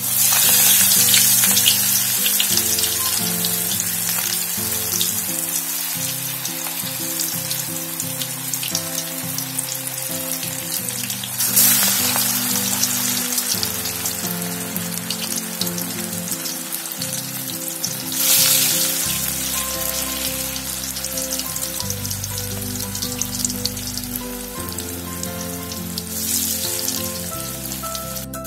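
Banana flower vadai deep-frying in hot oil in an aluminium kadai: a loud, continuous sizzling and crackling. It surges as balls of batter drop into the oil at the start, and surges again three more times.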